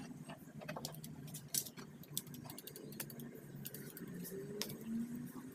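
Scattered light clicks and clinks of metal parts and hand tools being handled while a car's power window regulator and motor are taken apart, over a low steady hum.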